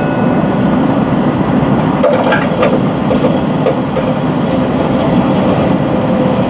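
Steady running noise heard inside the cabin of a moving HOT7000-series diesel limited-express train: a continuous low rumble of engine and wheels on the rails.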